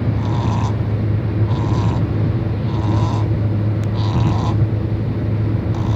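Shih Tzu dog snoring: five breathy snores about a second and a quarter apart, over a steady low rumble.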